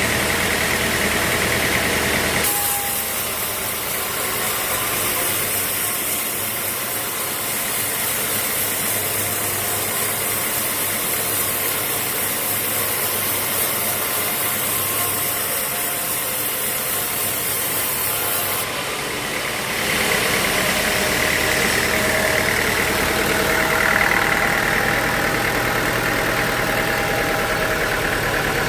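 Sawmill machinery running steadily: a constant motor hum with a high hiss over it. The sound changes abruptly twice, a couple of seconds in and again about two-thirds of the way through.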